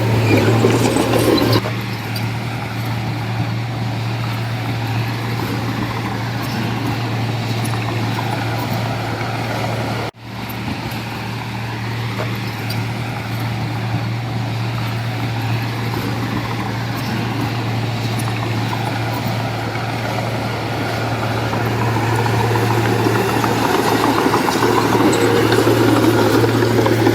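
Heavy diesel machinery engine running steadily under load, louder at the start and again in the last few seconds, with the sound cutting out for an instant about ten seconds in.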